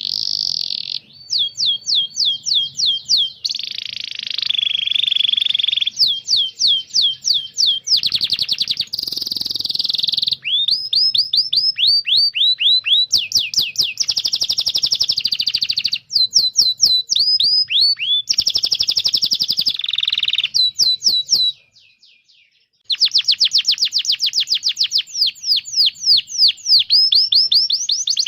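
Domestic canary singing: fast runs of repeated down-sweeping chirps alternating with rapid trills, breaking off briefly about three-quarters of the way through before starting again.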